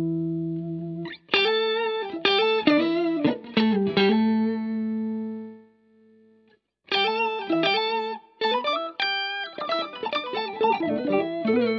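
Electric guitar played through an EHX Nano POG polyphonic octave generator into a Line 6 HX Stomp. A held chord rings out, then a picked melodic phrase starts about a second in and dies away into a brief pause, and a busier run of single notes follows.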